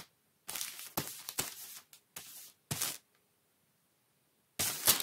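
Paper rustling and scraping in short bursts as cut-out paper shapes are slid by hand across a sheet, four quick bursts in the first three seconds and one more about four and a half seconds in.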